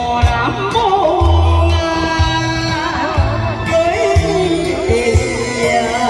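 Korean trot song sung live over a backing track: a singing voice with a wavering vibrato over a steady bass-and-drum beat.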